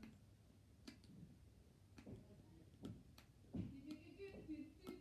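Faint mouth clicks and lip smacks from licking a push pop candy: a handful of scattered ticks, more frequent in the second half, with a brief low voice sound from the taster near the end.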